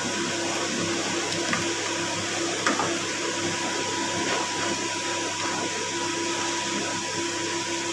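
Steady whirring noise with a faint high whine, and a single sharp snip about two and a half seconds in from scissors cutting a wire.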